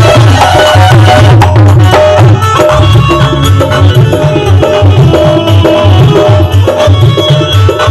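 Loud music with a drum beat and heavy bass, played through JBL stage monitor speakers.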